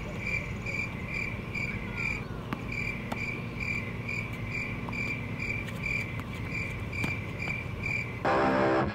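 Crickets chirping in a steady, even rhythm, about two to three chirps a second, over a low outdoor background hum. Near the end a short burst of louder music cuts in.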